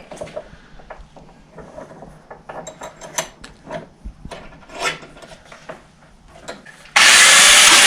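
Clicks, rattles and small metal knocks from handling a tool, then an angle grinder switches on abruptly about seven seconds in and runs loudly. Its grinding disc is mounted the wrong way round and not tightened.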